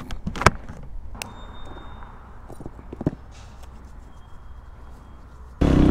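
A few soft clicks and knocks from handling riding gloves, phone and delivery bag over a low steady rumble. Near the end it jumps suddenly to loud motorcycle riding noise.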